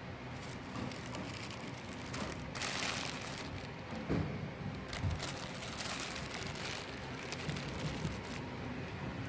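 Packaging being handled: rustling and crinkling with scattered clicks, and a louder rushing crinkle about two and a half seconds in.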